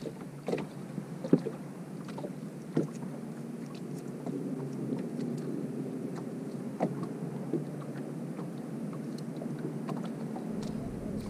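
Water lapping against the hull of a small fishing boat on choppy water, with a few light knocks and clicks, the sharpest about a second in. The steady low noise thickens from about four seconds in.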